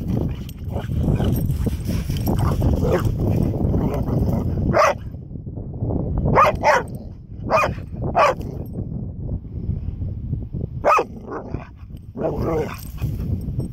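Pit bull giving short, high play barks and yips at a painted turtle, about seven in all from about five seconds in, some in quick pairs, with a slightly longer call near the end, over a low steady rumble.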